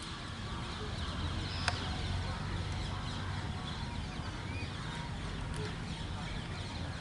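Open-air background noise: a steady low hum with a few faint bird calls, and one sharp click nearly two seconds in.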